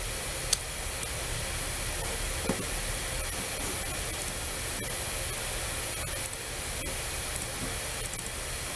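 Steady background hiss, with a few short, faint clicks of a computer mouse scattered through it.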